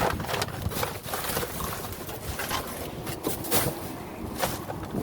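Rummaging through a dumpster: plastic bags and packaging rustling, and items knocking against each other, in irregular clicks and knocks about once a second.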